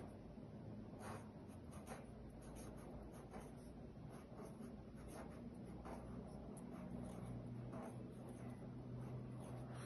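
Felt-tip marker writing on paper: faint scratchy strokes at irregular intervals.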